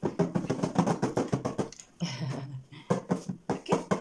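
A child's hands drumming quickly on the top of a cardboard keyboard box, pretending to play it like a piano: a fast patter of taps that pauses briefly about halfway through.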